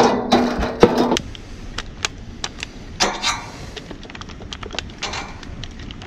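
Irregular clicks, taps and short rustles of hands handling an air-conditioning condenser's sheet-metal casing and a clamp meter's test leads. A steady pitched hum sounds through the first second and then stops.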